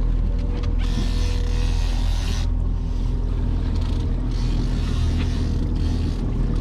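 Twin Yamaha 200 outboard motors running steadily at trolling speed as a low, even hum, with a hiss of wind and water that rises and falls over it.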